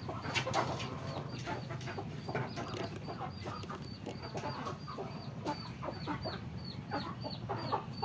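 A flock of chickens clucking, with a steady series of short, high, falling chirps repeating about three times a second from about a second in.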